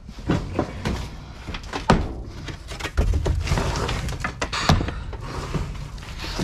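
Broken drywall sheets and wood panels being pushed aside and shifted by gloved hands in a dumpster: irregular knocks and thuds with rustling and scraping, the sharpest knocks about two seconds and nearly five seconds in.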